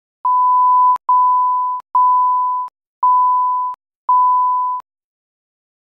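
Film-countdown leader sound effect: five steady, loud beeps at one pitch, each about three-quarters of a second long and roughly one a second, each cut off with a small click.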